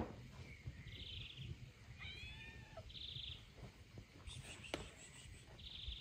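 Faint small-bird song: a short buzzy trill repeated about every two seconds, with another call that rises and falls about two seconds in. A single sharp knock sounds just before the five-second mark.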